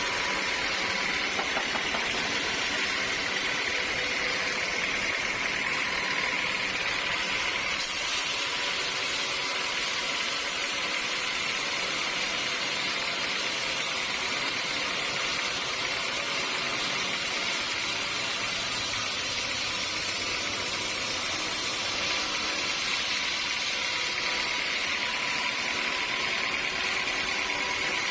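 Sawmill machinery running steadily, a constant mechanical noise with a faint high whine.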